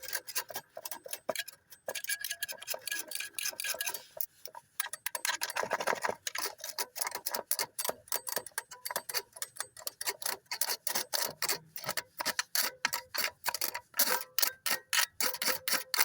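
Rapid, uneven clicking or tapping, several sharp taps a second, getting faster and denser near the end.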